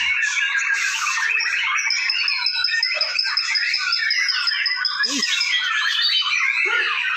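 Many caged white-rumped shamas singing at once: a dense, unbroken chorus of overlapping chirps, trills and whistles, with one thin high note held for about three seconds in the middle.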